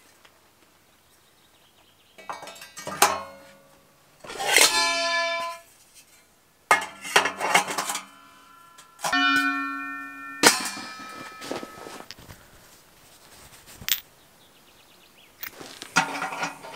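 Steel parts of a Caminus M tent wood stove clinking and knocking as they are handled and fitted on, in half a dozen separate bursts, several ringing on briefly with a bell-like tone.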